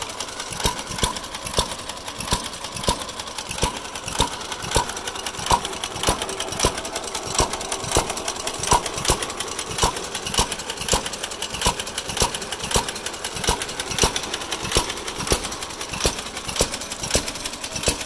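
Hit-and-miss engine of an antique Ideal power reel lawn mower running, firing with a sharp pop every half second to a second at uneven intervals, with a fast light clicking between the firings as it coasts.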